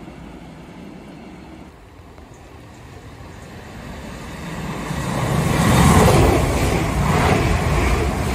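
A Siemens Desiro electric multiple unit approaching and running fast through a station. A rising rush of wheel and air noise is loudest about six seconds in as the coaches sweep close by, and stays loud to the end. Before it, for about the first two seconds, there is the fainter rumble of a receding container freight train.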